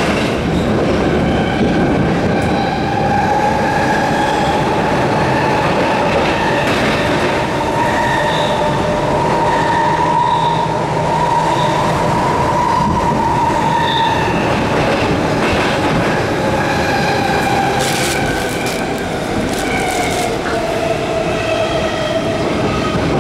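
Stockholm metro C6 railcar running through a tunnel, heard from inside the car: a steady loud running noise with a high whine that slowly rises in pitch over the first half and falls again in the second. A few sharp clicks come about three-quarters of the way through.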